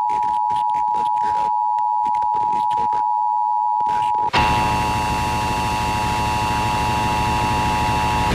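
Emergency Alert System two-tone attention signal, a steady electronic tone. About four seconds in it cuts out briefly, then comes back rougher with hiss under it.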